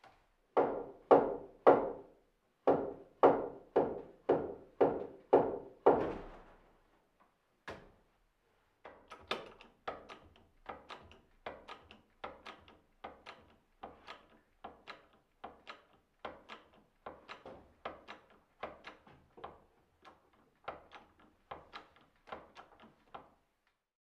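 Hammer blows on a timber beam, about two a second, each with a short woody ring. A loud series of about ten blows comes first, then after a short pause a long run of lighter blows.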